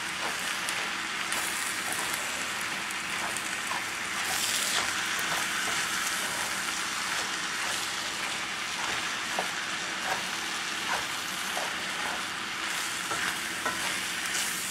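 Ground beef, rice and tomato sauce sizzling in a hot cast-iron skillet as a wooden spoon stirs through the mixture, with small scraping ticks of the spoon against the pan.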